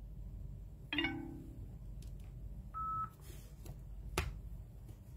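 Smartphone being handled: a brief tone about a second in, then a short single-pitch electronic beep just before the middle, with a few light taps, the sharpest a click about four seconds in.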